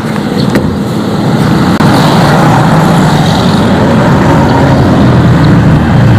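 Power tool cutting into the steel of a new Yamaha RX-King exhaust muffler to split it open. The sound is loud and steady and builds up over the first couple of seconds.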